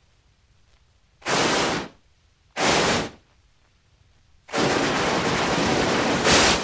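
Steam locomotive sound effect: two short hisses of steam a little over a second apart, then after a pause a longer, steady hiss of escaping steam.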